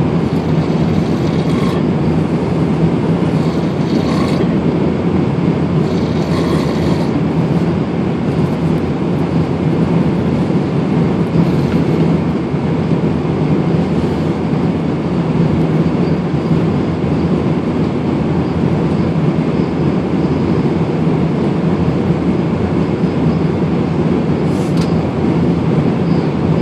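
Steady jet airliner cabin drone in flight, a dense, even rush. A few short, higher sounds stand out over it in the first seven seconds and once more near the end.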